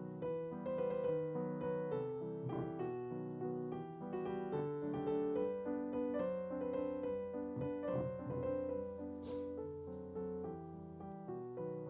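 Soft background piano music, a gentle melody of held notes.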